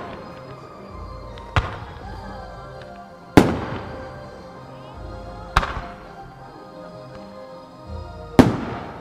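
Aerial firework shells bursting, four sharp bangs about two seconds apart, each trailing off in a fading echo, over background music.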